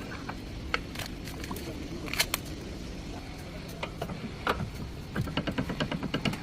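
Metal hand tools clicking and clinking against each other and the suspension parts, then a ratchet wrench clicking in a quick run of even strokes near the end.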